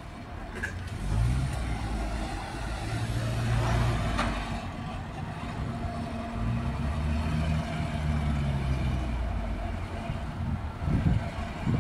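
Heavy diesel engine of a truck crane running at work, its revs rising and falling several times as the hydraulics are worked. A car drives past near the end.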